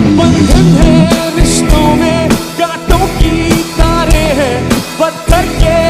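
Rock band playing live: a drum kit's regular beat under guitars and bass, with a wavering, bending lead melody line on top.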